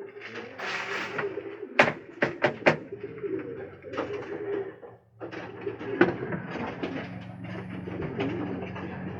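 Domestic pigeons cooing in a loft, several birds overlapping. There is a brief rustle near the start and a quick run of four sharp clicks or taps about two seconds in.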